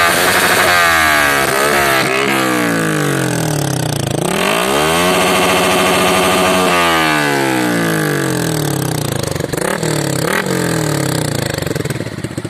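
Yamaha R15 V3's 155 cc single-cylinder engine revving through an aftermarket Daytona exhaust. It starts with a few quick blips, then one long rev that climbs, holds and falls back. Two short blips follow before it drops back toward idle.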